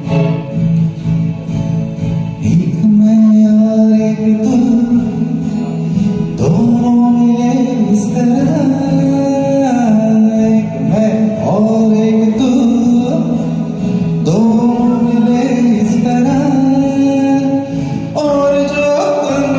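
A male amateur singer singing a Hindi film song over a karaoke backing track; the voice comes in about two and a half seconds in, after a short instrumental lead-in.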